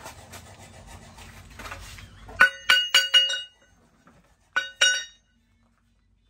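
A steel leaf spring rings out as it is struck on a steel post anvil: four quick ringing clinks about two and a half seconds in, then two more about a second later. Before the strikes there is a low, even background noise that cuts off abruptly.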